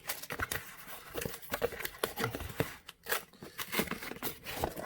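Packaging crinkling and rustling in a run of irregular crackles as a new motorcycle battery is handled.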